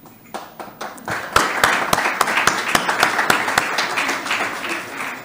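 An audience applauding. It starts with a few scattered claps, swells to full applause about a second in, and dies away near the end.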